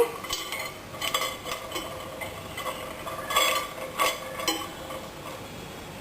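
Scattered light clinks and knocks of dishware as the fingers are set inside the microwave oven, the loudest about three and a half and four seconds in.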